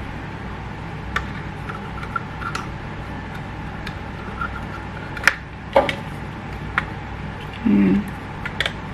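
Scattered light plastic clicks and taps as a GoPro camera is handled and fitted into its clear plastic waterproof housing, with two louder clicks about five to six seconds in, over a steady low background hum. A short low sound comes just before the end.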